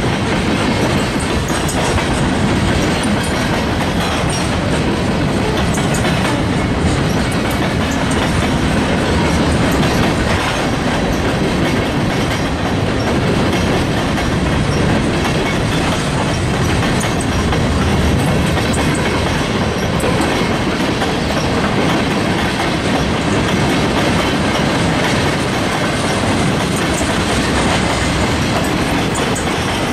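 Freight train cars rolling past, their wheels clattering steadily over the rail joints.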